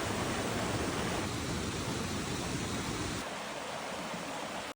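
A steady rushing noise with no distinct events, louder for about the first three seconds and then a little quieter until it cuts off suddenly.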